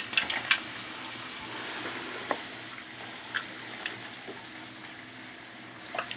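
Food frying: a steady sizzle, with a few light clicks and taps of a utensil against the pan.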